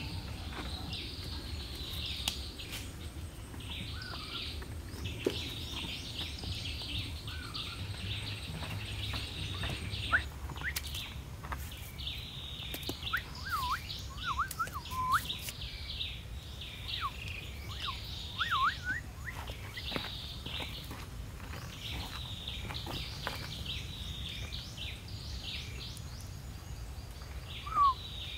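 Birds chirping over and over, with short whistled calls sliding up and down in pitch, loudest near the end, and a few sharp knocks.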